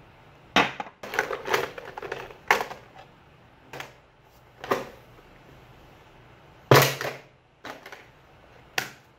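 Handling noise close to the microphone: a dense run of scraping, crunching rubs early on, then single sharp knocks every second or so, the loudest about two-thirds of the way through.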